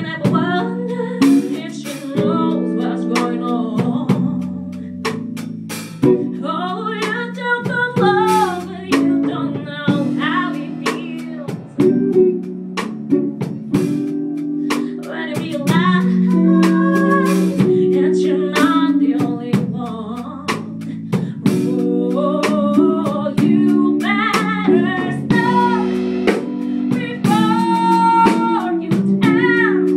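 A girl singing a song into a microphone over a live band: guitar, drums and held chords underneath.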